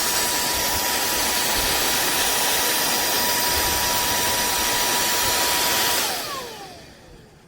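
Cordless handheld vacuum's brushless motor running in blower mode: a steady rush of air with a thin high whine. About six seconds in it is switched off, and the whine falls in pitch as the motor spins down.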